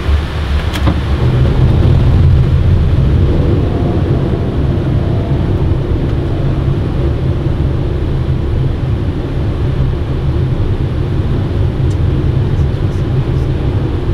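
Boeing 777 cockpit noise on approach: a click about a second in, then a steady low rumble that grows louder as the landing gear is lowered into the airflow.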